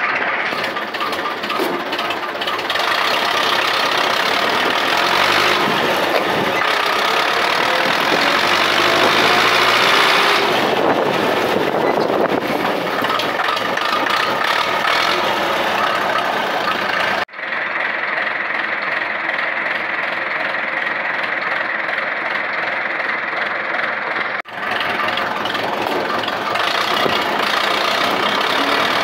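Ursus C-355 tractor's four-cylinder diesel engine running through a tall vertical exhaust stack on a muffler test, with the revs rising about six seconds in. The sound breaks off abruptly and comes back changed twice, about 17 and 24 seconds in.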